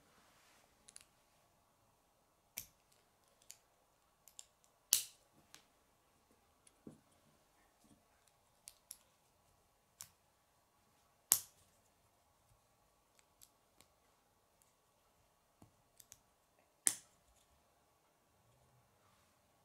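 Plastic K'nex connectors and rods clicking and snapping together as they are pressed into place by hand, in scattered sharp clicks, the three loudest about five, eleven and seventeen seconds in.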